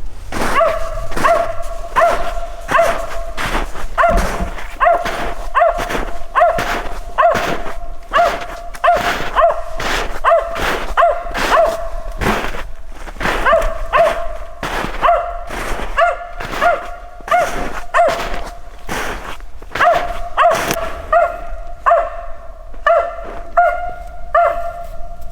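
Mountain feist barking steadily and rhythmically, about two barks a second, with no let-up.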